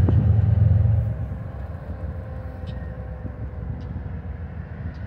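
Distant BNSF diesel locomotives moving through a rail yard: a low rumble, heavy for about the first second and then dropping to a lower, even level, with a few faint ticks.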